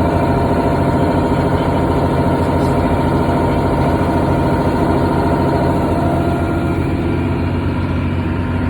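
Semi truck's diesel engine idling steadily, a dense even rumble, as it builds up after the trailer's air hoses are hooked up.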